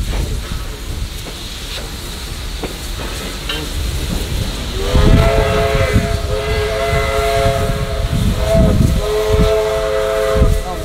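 Steam locomotive whistle sounding a steady multi-note chord, starting about five seconds in with a short break near the end. Before it comes a few seconds of steam hiss and low rumble as Victorian Railways D3 class 4-6-0 No. 639 moves slowly along the track.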